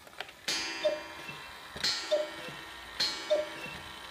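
Antique Black Forest cuckoo clock striking with its two-note cuckoo call: four rounds about a second apart, each a ringing strike followed by the two-note cuckoo.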